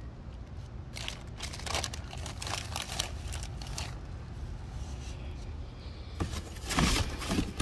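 Plastic bag around a new brake rotor crinkling and rustling as it is handled, in many short strokes. The handling gets louder about six seconds in, when the cardboard box is handled.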